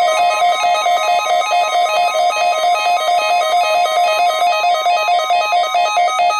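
NOAA Weather Radio 1050 Hz warning alarm tone held steady during a required weekly test, with a rapid electronic warble alternating between two notes over it.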